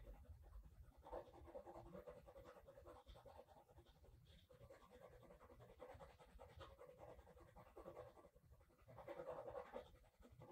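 Faint scratching of a graphite pencil shading on paper in short, irregular strokes, a little louder near the end.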